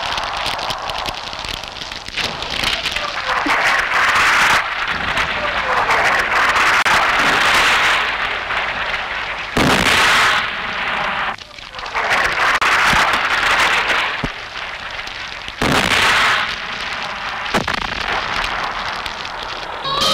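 Battle sound effects from a film soundtrack: explosions and gunfire over a continuous roar. Sudden loud blasts come about four and a half, nine and a half and fifteen and a half seconds in.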